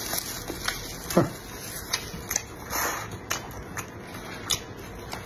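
Close-miked eating sounds of chewing fried half-hatched duck egg (balut), with scattered sharp little clicks and a few short wet, noisy patches.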